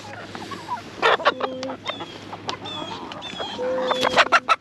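Backyard chickens clucking and calling, some in drawn-out steady notes and others in short high falling chirps, with a few sharp knocks about a second in and a quick run of them near the end.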